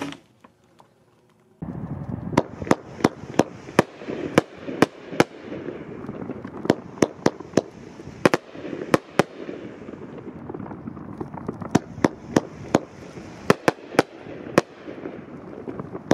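A Big Fireworks 'Fook Me Baby' 20-shot, 500-gram fan cake firing: a rapid run of sharp shots, roughly two a second, over a steady hiss. It starts about a second and a half in, after a brief near silence.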